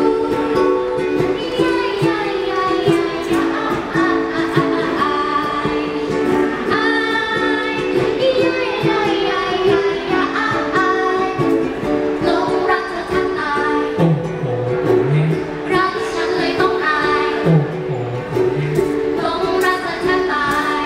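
Live acoustic song: two ukuleles strummed in steady chords, with a woman singing lead over them. A second, lower voice joins in briefly twice in the second half.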